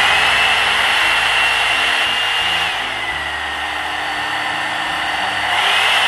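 Hot air blow brush running, its motor whining over a steady rush of air. A little after halfway the whine drops in pitch and goes a little quieter, then rises again near the end, as the brush is switched between its heat and speed settings.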